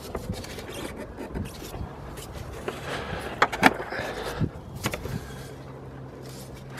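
Hands working among hoses and cable in a car's engine bay, making scattered clicks, knocks and rustles, with two sharp clicks about three and a half seconds in. A faint low steady hum comes and goes underneath.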